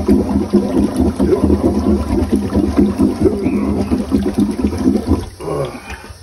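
Rubber toilet plunger worked in fast, short strokes in a clogged toilet bowl, water sloshing and gurgling with each push. The plunging stops about five seconds in. The toilet is still stubbornly clogged.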